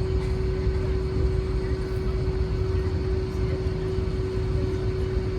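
Airliner cabin noise during takeoff: the jet engines and rushing air make a steady low rumble with a constant hum over it, heard from inside the cabin.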